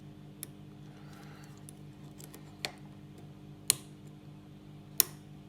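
Lock pick and tension wrench working the pins of a Master Lock 410 lockout padlock: a few small metallic clicks, the two sharpest about a second apart in the second half, as the core drops into a deep false set.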